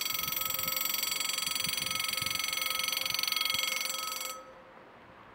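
Level-crossing warning bell ringing with a fast, even electronic ring while the barrier arms lower, warning that a train is approaching. It cuts off suddenly about four seconds in, as the barriers come to rest down.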